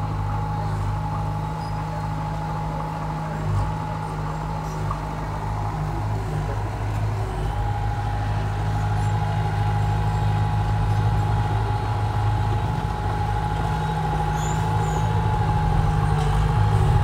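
Komatsu mini crawler bulldozer's diesel engine running steadily under load as it pushes soil, with a steady thin whine over the low engine drone. The sound grows a little louder toward the end, and there is a single small knock about three and a half seconds in.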